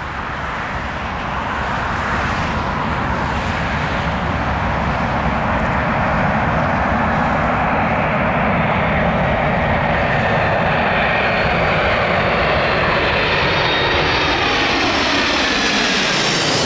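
Four-engined Boeing 747 jetliner passing low overhead on its landing approach, its jet engine noise building over the first couple of seconds and then holding loud and steady. Near the end a high whine begins to slide down in pitch as the aircraft goes past.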